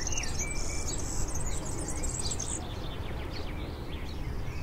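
Songbirds chirping and twittering, with short rising and falling calls and buzzy trills in the first half. A steady low background rumble runs underneath.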